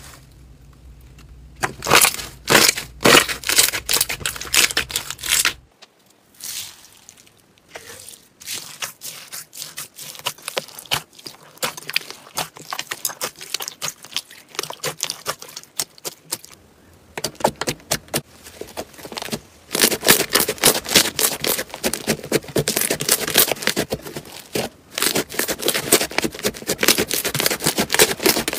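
Slime being pressed, kneaded and squeezed by hand, first clear slime, then glossy slime, then fluffy slime. It makes quick runs of crackling, popping clicks with short pauses between them, busiest and loudest over the last third.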